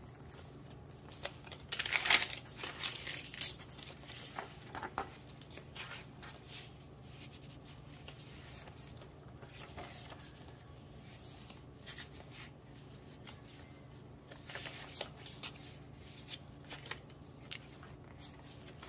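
Pages of a thick handmade junk journal being turned and handled, dry paper rustling and crinkling in short bursts, the loudest about two seconds in and another cluster near the end, over a steady low hum.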